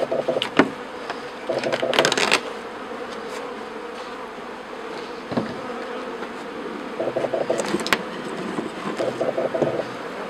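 Honeybees buzzing steadily around an open top-bar hive, swelling louder three times as bees fly close by. A few sharp wooden knocks come as hive parts are handled.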